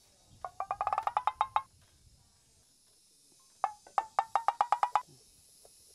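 Comic sound-effect cue on pitched wooden percussion, like a wood block or xylophone. It plays a rapid run of about ten knocks a second that rises slightly in pitch and lasts about a second, then a second similar run a couple of seconds later.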